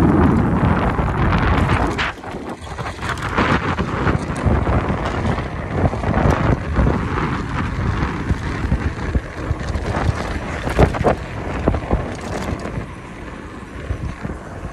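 Wind buffeting the microphone over the hum of bicycle tyres rolling on rough, cracked asphalt, with scattered knocks and rattles from the bike. The wind is heaviest in the first two seconds, then eases.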